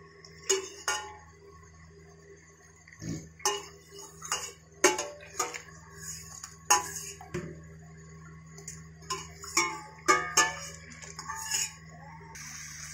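Steel ladle and steel cooking pot clinking and knocking against each other again and again while the starchy water is drained off boiled rice, each knock ringing briefly. A steady hiss of pouring water starts near the end.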